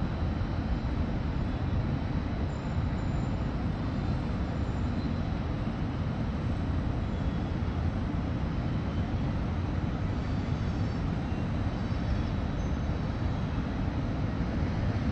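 Steady outdoor ambient noise high above a city: an even low rumble with a faint hiss over it and no distinct events.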